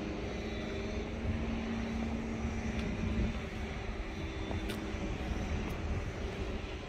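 Steady low rumble of engine noise, with a droning tone that fades out about three seconds in.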